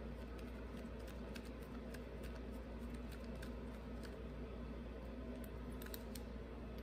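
Faint, irregular small clicks of a hand screwdriver turning small screws into a carburetor body, over a steady low hum.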